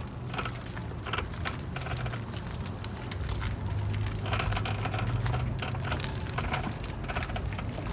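Toyota RAV4 EV on the move: a steady low hum with irregular crunching clicks and knocks running through it.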